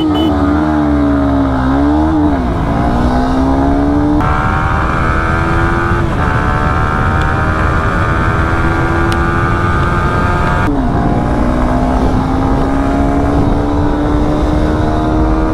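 Single-cylinder sport motorcycle engine at full throttle from a standing launch: revving unevenly as the clutch bites, then climbing steadily in pitch through the gears, with the pitch dropping at each upshift. Wind rush over the on-board microphone.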